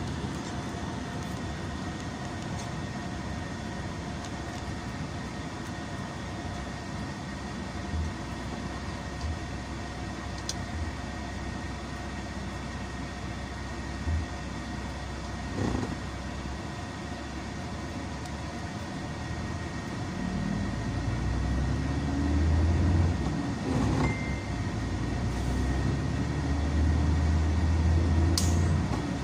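Bus engine and road noise heard from inside the cabin while driving in city traffic: a steady low rumble that grows louder and heavier about two-thirds of the way in, with a few brief clicks and knocks.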